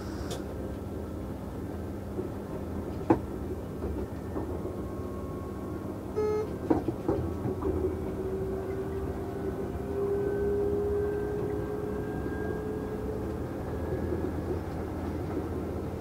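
Train running along the rails, heard from the cab: a steady rumble with occasional sharp clicks from the track, the loudest about three seconds in. From about six seconds in, a faint whine slowly rises in pitch.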